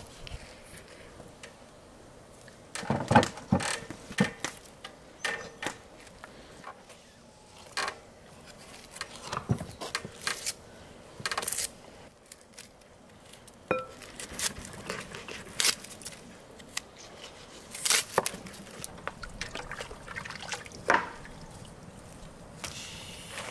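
A knife cutting raw beef leg meat on a metal platter, with scattered knocks, clicks and wet tearing sounds of the meat being worked.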